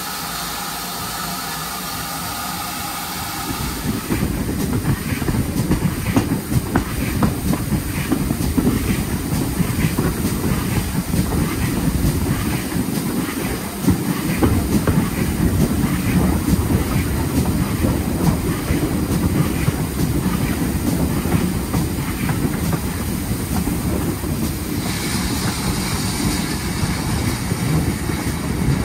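Steam locomotive GWR Large Prairie 4144 standing with a steady hiss of steam. After a cut about four seconds in, the train is running, heard from a carriage window: a rumble of wheels on the rails with a regular beat, and a louder hiss joining near the end.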